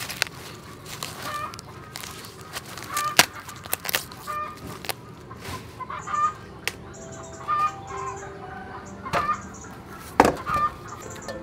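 Green corn husks being torn off ears of yellow corn by hand, a series of sharp rips, the loudest about three seconds in and again near the end. Chickens cluck in the background.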